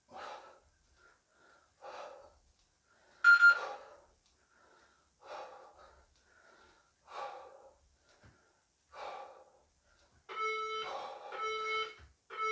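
Heavy breathing during press-ups: a sharp breath out about every two seconds, six in all. Near the end, three short electronic beeps about a second apart from a Tabata interval timer, counting down to the end of the 20-second work period.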